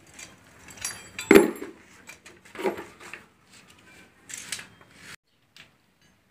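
Metal hand tools and loose timing-chain parts clinking against a bare engine block during dismantling: a few separate sharp metallic clinks that ring on briefly, the loudest about a second and a half in, others near three and four and a half seconds. The sound cuts off suddenly about five seconds in.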